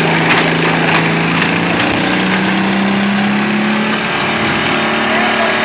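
Riding lawn mower engines running hard under load as two mowers chained together pull against each other. The engine note steps up a little about two seconds in.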